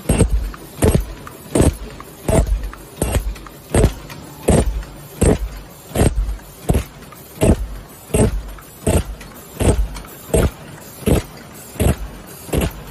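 XL-ZBG16 paper cup forming machine running, a sharp mechanical clank with a deep thump at each stroke of its cycle, repeating evenly about every three-quarters of a second over a steady machine hum.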